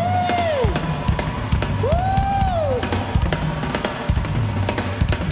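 Live drum solo on an acoustic drum kit: fast, dense strokes on bass drum, snare, toms and cymbals. A gliding tone swoops up and down twice over the drumming, near the start and about two seconds in.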